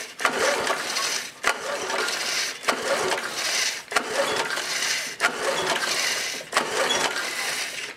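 Recoil starter of a Tecumseh TVS105 L-head lawn mower engine pulled six times in quick succession, about one pull every second and a bit. Each pull is a click and then a whir of the rope as the engine turns over. The engine doesn't fire because it is being cranked for a compression test, with the spark plug out and a compression gauge in the plug hole.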